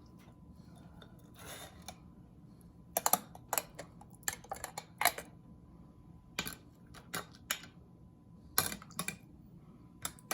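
Light, irregular clicks and taps of kitchenware, such as a spoon or utensil against glass jars, about a dozen scattered through the middle and later part.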